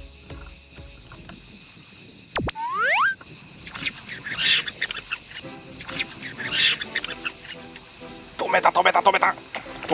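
Steady, high-pitched chirring of an insect chorus (crickets) beside the rice-paddy channel. About two and a half seconds in, a quick rising whistle-like glide cuts across it. Near the end comes a short cluster of choppy, voice-like sounds.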